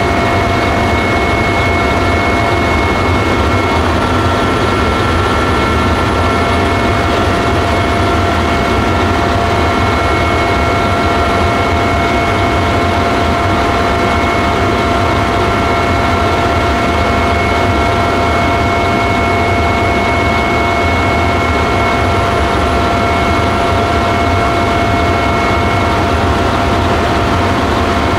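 Helicopter in steady flight, heard from on board: a loud, unchanging engine and rotor noise with a constant high whine.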